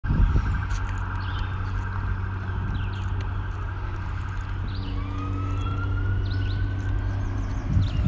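Steady low hum of traffic under a highway overpass, with short bird chirps over it. In the second half a long high wail rises slowly in pitch.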